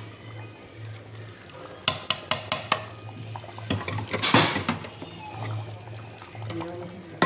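A metal spoon clinking and scraping against a steel cooking pot as chopped coriander is stirred into a cooked curry. A quick run of clinks comes about two seconds in, then a louder scraping clatter around four seconds in.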